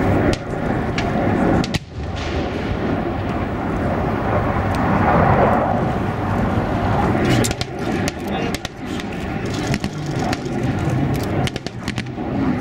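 Steady rumble of amphibious armoured vehicles' engines as they come ashore from the sea, with scattered sharp cracks in the second half.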